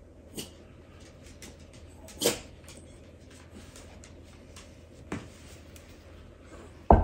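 A fork crimping the edge of a pie crust, its tines knocking against the pie dish and baking mat in a few separate clicks, with a heavier thump near the end.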